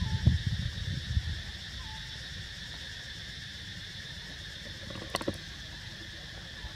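A steady chorus of insects droning in the background. Low rumbling noise fills the first second or so, and two sharp clicks come close together about five seconds in.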